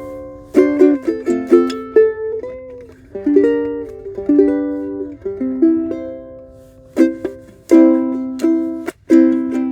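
Martin 3M Ditson dreadnought ukulele with Aquila strings, played solo: strummed chords and picked melody notes, each attack ringing out and fading, with a short break about nine seconds in.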